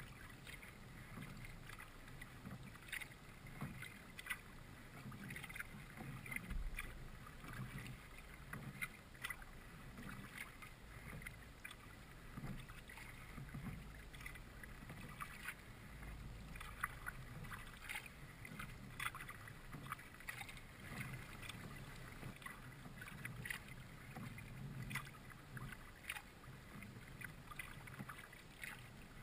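Kayak paddling on calm water: paddle blades dipping and dripping in a run of small, irregular splashes.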